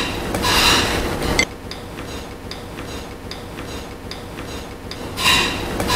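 Hands dropping white chocolate discs into a stainless steel saucepan of cream, with handling noise about half a second in and again near the end, a single click between them and a few faint ticks, over a steady low hum.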